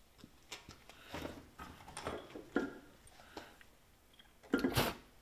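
Aluminium cylinder head knocking and scraping against a Ford 302 small-block as it is lowered onto the deck and worked over the locating dowels, with a louder thump about four and a half seconds in.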